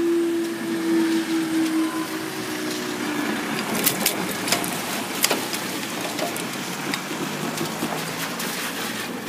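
A railway level-crossing barrier's drive motor hums steadily as the boom rises, winding down and stopping about three seconds in. A few sharp knocks follow, then the hiss of road traffic on a wet road.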